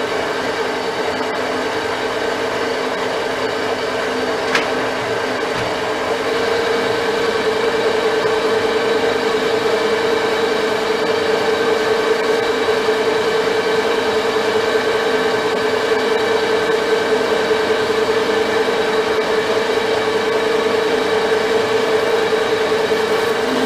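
Metal lathe running, turning down a round steel bar with a cutting tool: a steady hum with one clear tone, which grows louder about six seconds in. One short tick about four and a half seconds in.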